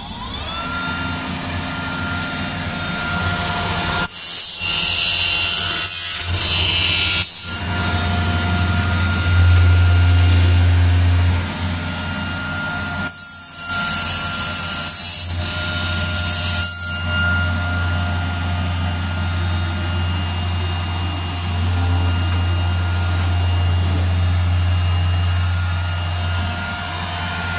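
Milling machine with an alloy milling cutter, its spindle spinning up to a steady whine over a deep hum. Twice, about four seconds in and again about thirteen seconds in, a loud harsh hiss lasts three to four seconds as the cutter slots aluminium profile.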